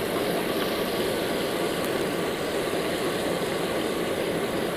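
Hot oil in a large iron kadhai sizzling steadily as besan sev dough is rubbed through a perforated ladle and the strands fry.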